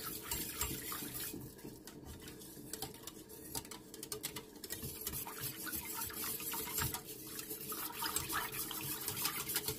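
Water running from a kitchen tap and being poured, with light clinks of glass and utensils.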